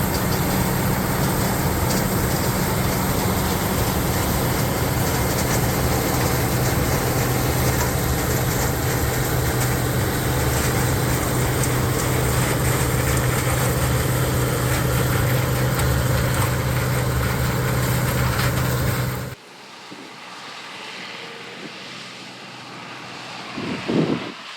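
Gleaner L3 combine harvesting corn: its turbocharged six-cylinder Allis-Chalmers 670T engine and threshing machinery run at a steady working load with a strong low hum. The sound cuts off abruptly about three-quarters of the way through, leaving quieter wind noise and one brief loud knock near the end.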